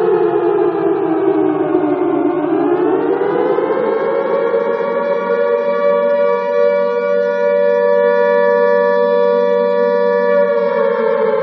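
Alarm siren wailing. Its pitch falls for about two and a half seconds, climbs back up over the next two or three, holds steady for about five seconds, then starts to fall again near the end.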